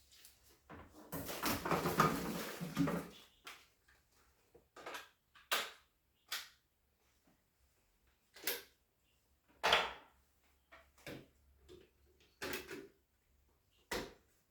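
Handling noises: about two seconds of rustling near the start, then a string of short, separate knocks and clicks, roughly a second apart.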